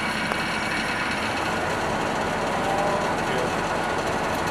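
Steady running noise of a HEMTT fuel servicing truck's engine during refueling.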